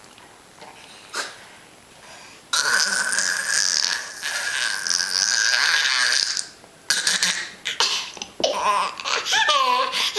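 A baby making noise in his high chair: a long, steady high-pitched squeal held for about four seconds, then short bursts of laughter near the end.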